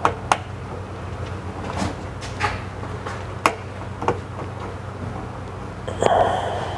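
Sharp, scattered plastic clicks and knocks as trim clips are pushed into a car tailgate panel, with a longer scraping rustle near the end, over a steady low hum.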